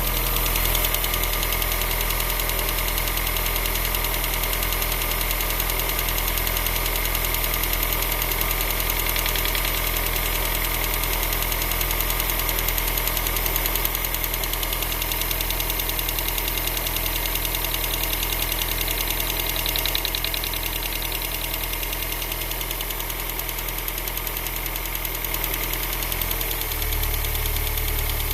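Vauxhall/Opel X20XEV 2.0-litre 16-valve four-cylinder engine idling with a steady ticking. The engine note shifts slightly near the end.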